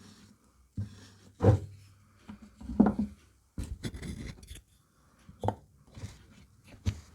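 A few short scrapes, rubs and knocks from small objects being handled on a workbench, with a longer scraping stretch in the middle.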